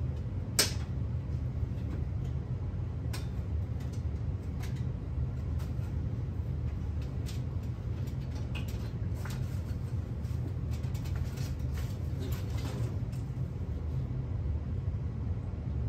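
Hands working the packaging on a steel dirt-bike shipping crate, giving scattered clicks and rustles, with a sharp click about half a second in and a busier run of them near the end, over a steady low hum.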